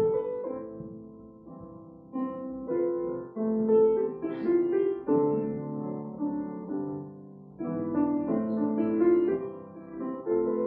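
Piano playing a slow, gentle piece in chords. Each group of notes is struck and then left to fade.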